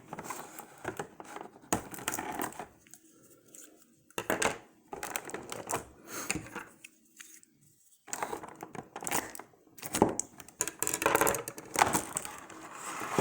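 Box and plastic packaging being torn open and crinkled by hand, in irregular bursts of rustling and tearing with short pauses.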